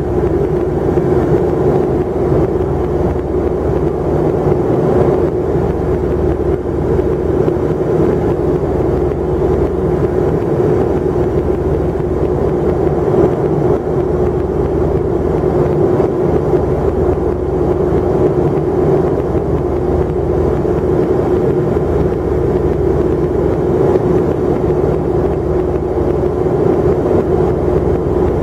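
Steady airliner cabin noise in cruise: engine and airflow drone with a constant hum, unchanging throughout.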